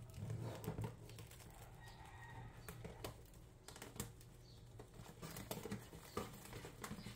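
Cellophane shrink wrap crinkling and tearing as it is pierced with a pen and pulled off an album box, with scattered small clicks and scrapes over a low steady hum.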